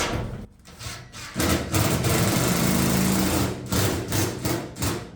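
Handheld power driver running a bolt in: one continuous run of about two seconds, then several short bursts as the bolt is snugged down.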